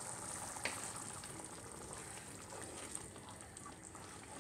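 Thick potato curry gravy bubbling at a boil in a pan, a faint steady bubbling hiss. There is one sharp click about two-thirds of a second in.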